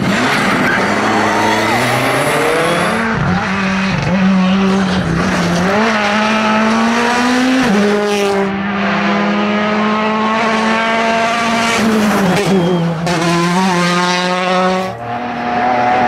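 Rally cars at racing speed through corners, one after another, their engines running at high revs with quick gear changes that step the engine pitch up and down several times.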